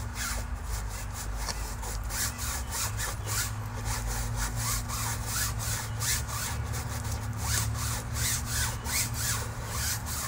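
Water-fed pole brush head scrubbing back and forth across a wet window screen: a quick run of rasping bristle strokes, about three a second, over a steady low hum.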